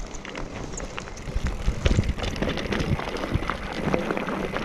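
Mountain bike riding over a dirt trail: tyre noise with irregular clicks and knocks from the bike rattling over bumps.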